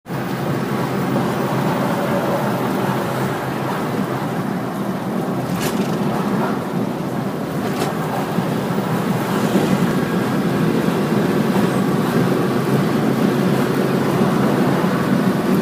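Steady road and engine noise heard inside a moving car's cabin, with a couple of faint clicks about six and eight seconds in.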